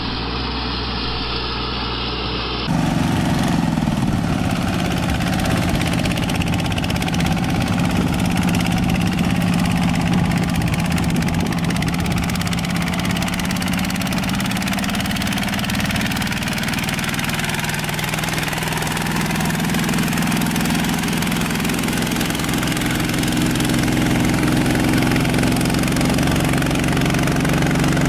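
Tractor engine and pumpkin seed harvester running steadily, a droning hum. It steps louder and fuller about three seconds in, and sags in pitch for a few seconds past the middle before coming back up.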